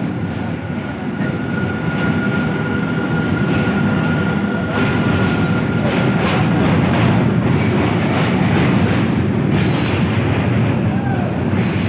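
Passenger train running over a steel truss bridge, heard from on board: a steady, loud rumble with occasional clacks of the wheels.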